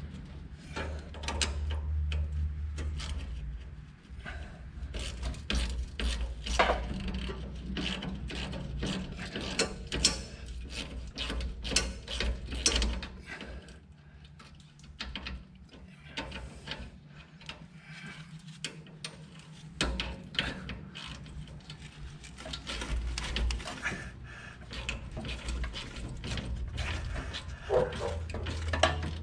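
Ratchet wrench clicking in quick runs, with metal clinks and knocks, as fasteners on the truck's exhaust aftertreatment are worked. A low steady hum runs underneath and drops out for several seconds midway.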